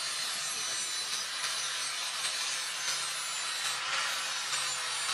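Electric angle grinder with an abrasive disc grinding the flat of a steel knife blade: a steady, harsh grinding hiss of disc on steel, with the motor's faint even whine beneath it.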